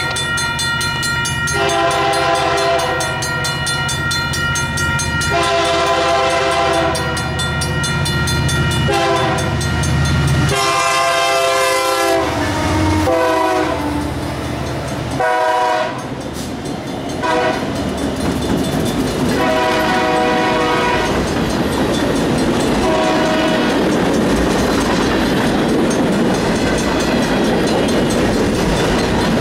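Union Pacific freight train's diesel locomotives passing a grade crossing, sounding their air horn in a series of blasts (two long, then several shorter ones) over the deep rumble of the engines. After the last horn blast about 23 seconds in, the freight cars roll past with a steady clatter of wheels on the rails.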